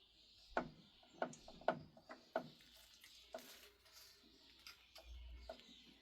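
Faint, irregular metallic clicks and light knocks from the gear train and selector of a 1968 Kerry AG Mk2 lathe being worked by hand with the cover off. There are about half a dozen in the first two and a half seconds, then a few more spread out.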